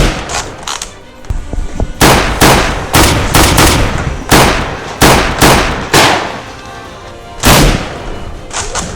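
A string of sharp gunshot-like blasts from a Nerf blaster fight, about a dozen at irregular spacing, each ringing out briefly. Background music plays underneath.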